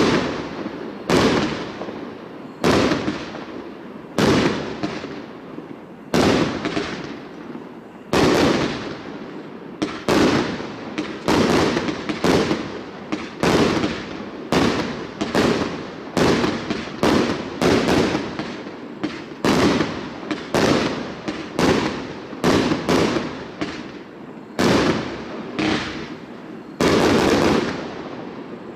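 A 1.2-inch 36-shot cake firework firing its peony shells one after another, a series of sharp bangs each trailing off in an echo. The shots come about every second and a half at first, quicken to under a second apart in the middle, then space out again near the end.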